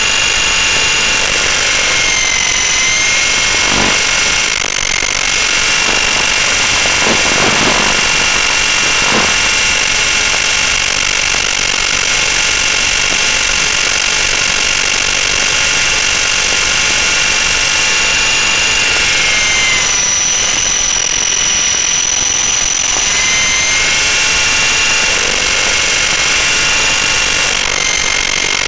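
Electric RC helicopter's motor and drivetrain whining steadily in flight, heard from the onboard camera, with a high multi-toned whine over a rushing noise. The whine dips briefly in pitch a few times.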